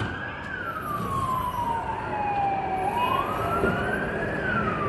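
Police car siren in a slow wail, its pitch rising and falling in long sweeps of about four seconds each.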